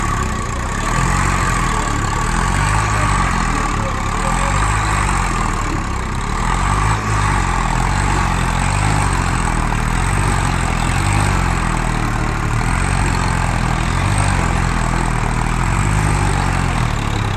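Tractor diesel engine running steadily throughout, its low drone swelling and fading in a slow, regular pulse.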